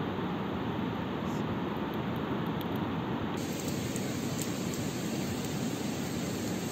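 Steady rushing of a nearby river, an even noisy wash, with a few faint crackles from the wood fire.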